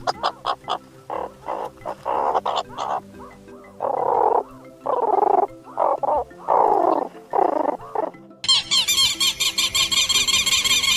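Animal calls: a run of short, separate calls about half a second each, then, about eight seconds in, a sudden change to a dense, high-pitched chorus of rapid repeated chirping calls.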